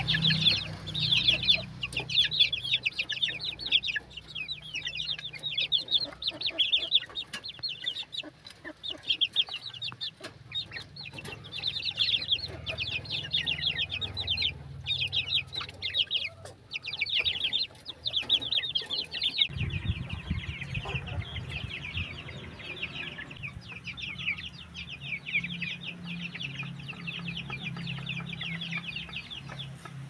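Young chickens chirping and cheeping without pause in a dense chorus of short, high calls, many overlapping each second.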